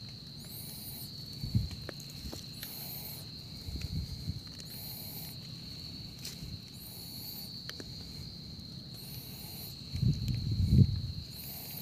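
Night insects keep up a steady high-pitched drone, with short higher chirps repeating about every two seconds. Over this come soft rustles and knocks from a hand handling termite mushrooms on the forest floor, the loudest near the end as one is picked up.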